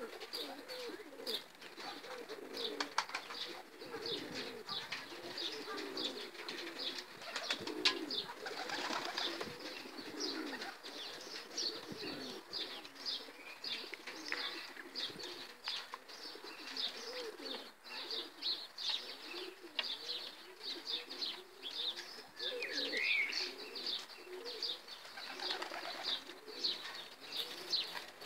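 A flock of Pakistani pigeons cooing in low, wavering warbles, with many quick high chirps throughout and a few wing flaps.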